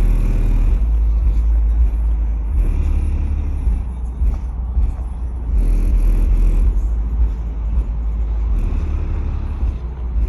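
Audio Pipe TXX-BDC4 12-inch subwoofers driven by a Taramp 8,000-watt amplifier, playing a song's deep bass loudly, with the bass notes changing every second or two and the rest of the music faint above.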